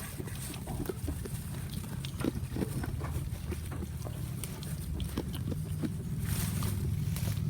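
Goat chewing crunchy food: irregular crisp crunches and clicks of feed breaking between its teeth, over a low steady rumble.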